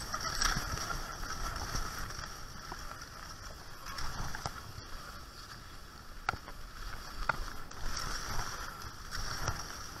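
Salomon cross-country skis hissing steadily as they glide over packed snow, pulled along behind running dogs, with a few sharp clicks in the middle.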